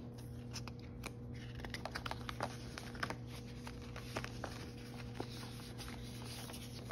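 Paper dollar bills and a clear plastic binder pocket being handled: soft rustling with many light, scattered clicks and taps as the bills are slid into the pocket.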